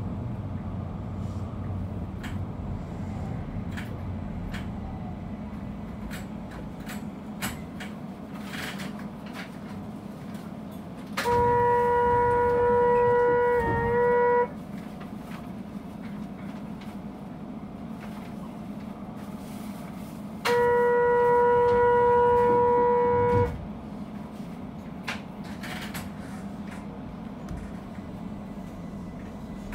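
Keihan 800 series train's horn sounded twice, each a steady blast of about three seconds, the two some nine seconds apart, over the train's running rumble on the rails. The first blast dips briefly in pitch just before it ends.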